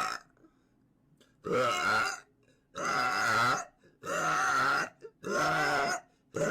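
A woman burping loudly, four long burps in a row about a second apart, each lasting under a second.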